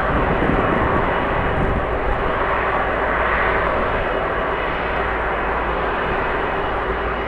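Jet airliner engines running with a steady rush and a faint high whine, over a low rumble of strong wind on the microphone.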